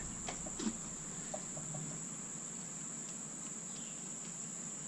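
Faint clicks and taps of a spring being worked down inside a short rubber fuel hose, in the first two seconds, over a steady high-pitched whine and hiss.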